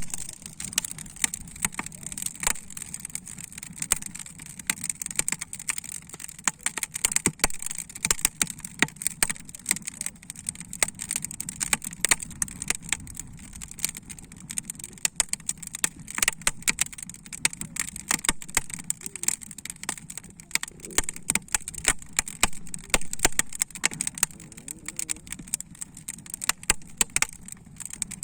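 Wood fire crackling inside a kamado cooking hearth, with many sharp pops and snaps coming irregularly throughout over a steady low hiss.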